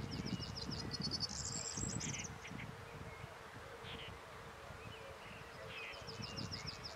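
Small birds singing at dusk, with repeated high trills and short chirps at the start and again near the end, over a steady insect buzz. Low gusts of wind buffet the microphone, strongest in the first two seconds.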